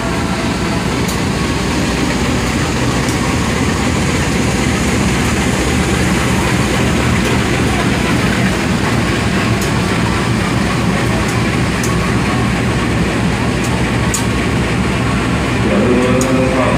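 Diesel engine of a CC 201 diesel-electric locomotive running with a steady low rumble as the train pulls slowly in alongside the platform, with a few faint ticks from the moving train.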